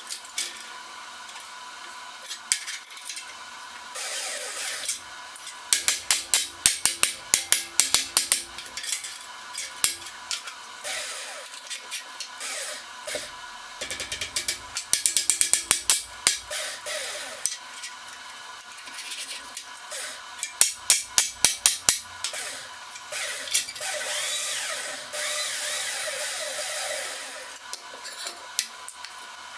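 Eastwood Elite 60 plasma cutter on a CNC table cutting Hardox 450 steel plate, over a constant machine hum. Several runs of rapid sharp crackles come through the cut, and near the end there are a few seconds of steady hissing.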